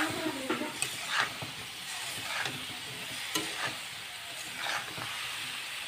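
Eggplant, potato and bean pieces sizzling in oil with spices in a kadhai while a steel spatula stirs and scrapes them against the pan. The steady sizzle is broken by scraping strokes every second or so.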